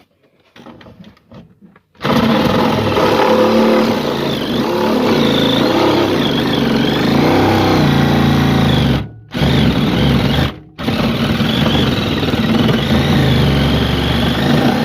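Hand-held electric saw running and cutting through a travel trailer's floor, starting about two seconds in, with its pitch wavering as it bites. It stops briefly twice around the middle.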